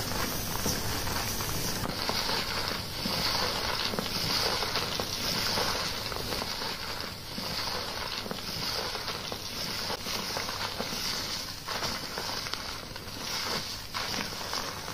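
Wet, foamy squishing and crackling of shampoo lather as gloved fingers knead and scrub a lathered scalp, swelling and fading with each stroke.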